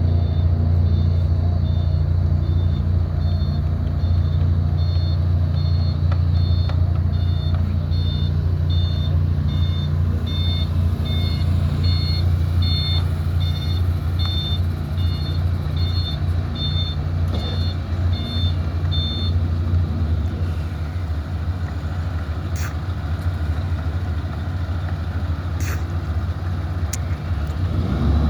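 Heavy road-construction machinery running, a steady low diesel engine hum, with a reversing alarm beeping about one and a half times a second. The alarm grows louder toward the middle and stops about two-thirds of the way through, and the engine then runs somewhat quieter.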